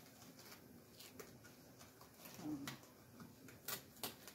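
Quiet room tone with a brief faint murmur about halfway through and two soft, sharp clicks near the end.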